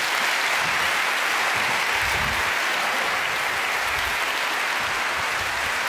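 Large theatre audience applauding, a steady dense clapping throughout.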